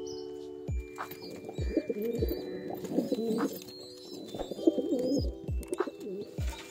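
Domestic pigeons cooing in two bouts, with a short break around the middle.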